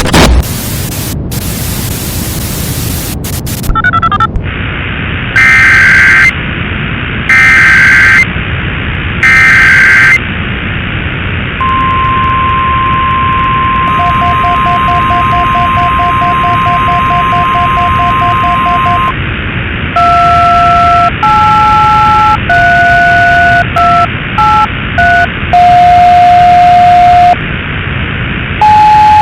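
Simulated NOAA Weather Radio broadcast under constant heavy radio static: a loud burst of noise at the start, then three one-second bursts of SAME digital header data, then a steady single-pitch weather radio warning alarm tone held for about seven seconds. After that comes a quick run of touch-tone (DTMF) dialing beeps.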